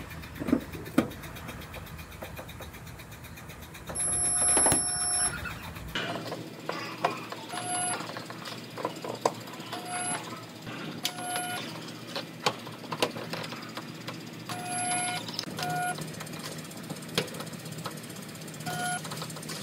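Resistance spot-welding gun firing weld after weld on car-body sheet metal. Each weld is a short buzzing tone of the same pitch, repeated about ten times, with sharp clicks from the gun's arms clamping and releasing between them.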